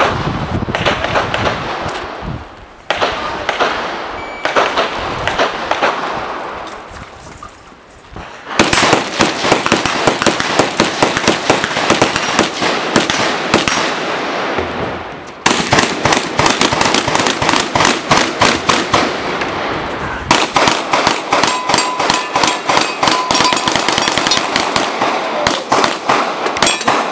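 Rapid gunfire from two shooters firing at once at steel targets, dozens of overlapping shots. The shots are sparser for the first eight seconds, then come almost without a break from about eight seconds in.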